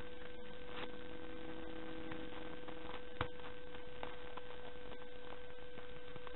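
Steady electrical hum, with faint snips of scissors cutting through folded paper and one sharper click about three seconds in.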